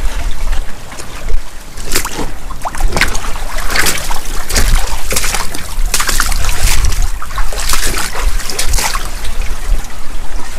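Boots splashing and wading through a shallow rock pool, irregular splashes, over wind buffeting the microphone with a low rumble.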